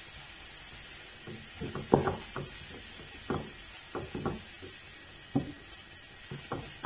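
A silicone spatula stirring and pressing vegetable filling in a nonstick frying pan, making irregular soft knocks and scrapes against the pan from about a second in. Under them is a faint steady sizzle from the food cooking.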